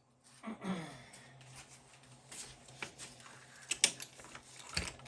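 Hand tools being handled: scattered clicks and light knocks, the sharpest a single click about four seconds in.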